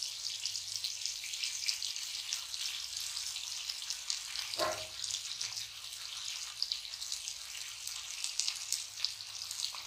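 Pomfret steaks frying in shallow oil on an iron dosa griddle (tawa): a steady crackling sizzle, with one brief louder noise about halfway through.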